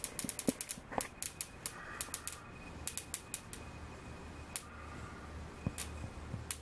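Electric bug zapper's grid snapping as paper wasps hit it: a rapid crackling run of sharp zaps in the first second and a half or so, thinning out to scattered single snaps later, over a low steady hum.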